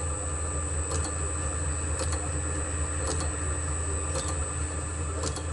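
Steady low hum with short sharp clicks about once a second as the lathe's dividing plate is indexed round, hole by hole.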